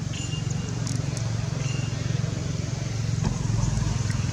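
A steady low engine-like rumble, with a few short high chirps near the start and about a second and a half in.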